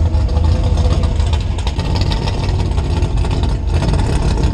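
Supercharged, cammed 392 HEMI V8 of a RAM pickup idling, heard from inside the cab: a steady low engine rumble.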